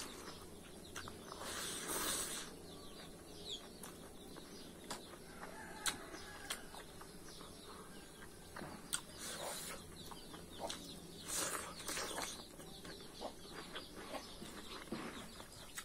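Close-up eating sounds of curry and rice eaten by hand: wet chewing, lip smacking and squelching of the food, in a few short bursts. Faint bird calls in the background.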